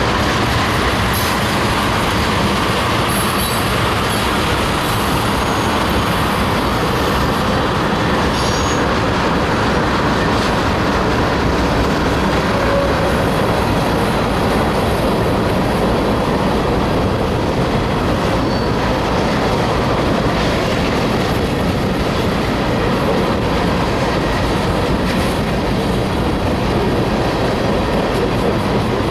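Freight cars (tank cars, covered hoppers and autoracks) rolling past in a steady rumble of steel wheels on rail, with a few faint high wheel squeals in the first several seconds.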